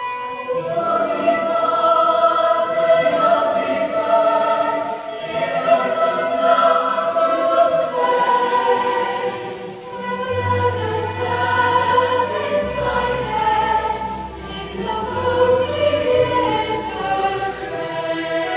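Stage musical chorus number: an ensemble of voices singing long-held notes together over accompaniment, with low sustained bass notes coming in about ten seconds in.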